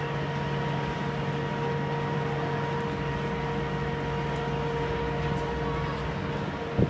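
Inverted roller coaster train climbing the lift hill slowly, with a steady mechanical droning hum from the lift. A brief loud knock comes near the end.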